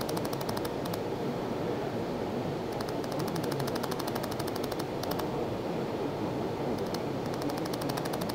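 Pulsed laser welder firing on a steel injection mold: bursts of rapid sharp ticks, about ten pulses a second, each burst lasting up to about a second, with short pauses between them. A steady fan-like hiss runs underneath.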